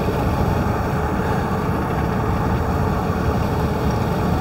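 Steady road and engine noise inside a moving car's cabin: an even low rumble with a faint steady hum above it.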